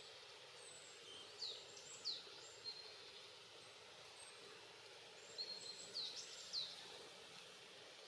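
Common kingfisher calling: two short bouts of high, thin, piercing whistles, each a few sharp notes that drop steeply in pitch, over a faint steady hiss.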